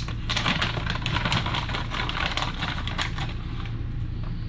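Frozen pineapple chunks dropped into a blender jar: a quick run of irregular clicks and clatter for about three seconds, over a steady low hum.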